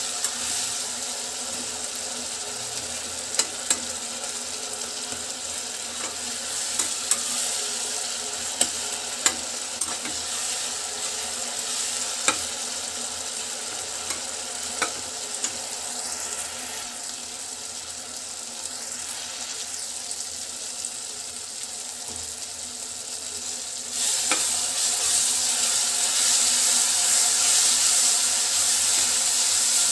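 Chopped onions and tomatoes sizzling in oil in a pan, stirred with a metal spatula that knocks and scrapes against the pan now and then. The sizzling turns suddenly louder about six seconds before the end.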